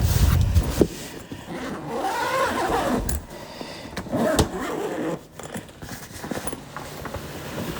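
A guitar gig bag being unzipped and the guitar lifted out: the bag's fabric rustles and scrapes, with a heavy handling thump at the start and a few knocks.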